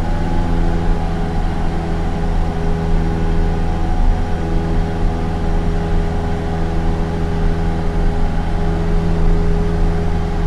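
Single-engine light aircraft's piston engine and propeller droning steadily at constant power, heard from inside the cabin.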